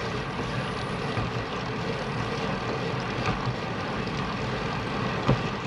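Steady rushing of wind over the action camera's microphone, mixed with a road bike's tyres rolling on a concrete trail, with one faint tick near the end.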